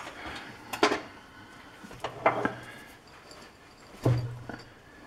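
Metal tooling being handled at a metal lathe: three sharp clanks with some lighter clatter between them.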